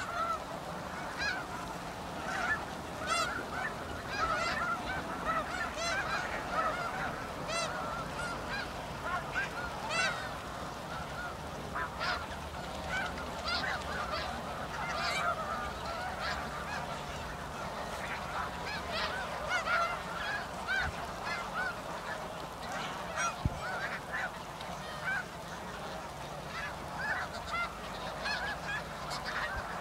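A large flock of snow geese calling continuously, many short honks overlapping into a steady chorus. A single brief knock about two-thirds of the way in.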